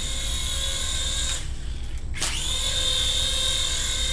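Small electric rotor motors of a Hasbro remote-control Republic gunship toy running with a high-pitched whine. The whine cuts out about a second and a half in. After a click it spins back up and runs steadily again.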